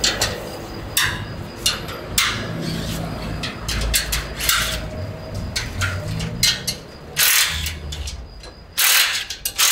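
Cordless power drill/driver run in short bursts, about a dozen trigger pulls, unfastening the bolts of a steel motorcycle shipping crate, over a low steady rumble.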